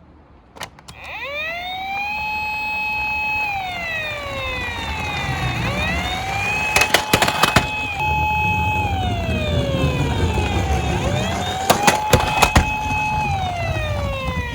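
Electronic siren of a toy police minicar. Three times a tone rises, holds high for about two seconds, then slides back down, over a low rumble. Two bursts of sharp clicks come about halfway through and again near the end.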